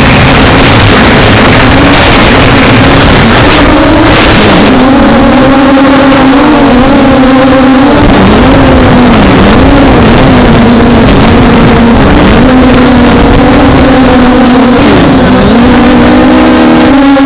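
MJX Bugs B5W quadcopter's brushless motors and propellers humming, the pitch wavering up and down as the motors correct against gusts. Heavy wind rush on the microphone for the first few seconds, then it eases.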